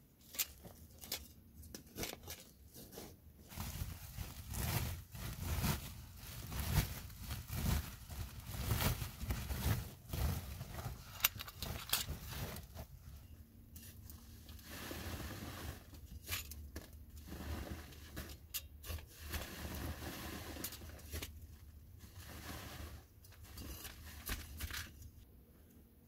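A knife scraping and cutting at packed earth and wood, with the rustle of a woven plastic sack being handled and many small clicks and knocks.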